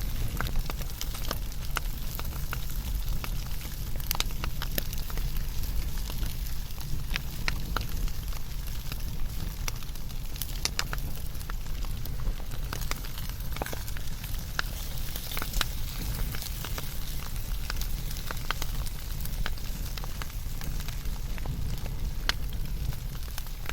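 Wood fire burning: a steady low rumble with frequent irregular sharp crackles and pops.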